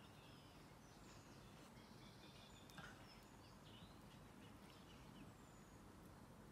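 Near silence: faint outdoor ambience with scattered short, high bird chirps, and one soft knock near the middle as a mug is set down on the ground.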